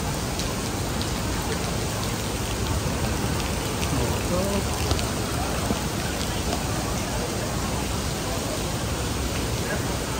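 Heavy rain pouring onto wet pavement, a steady hiss with scattered drops ticking.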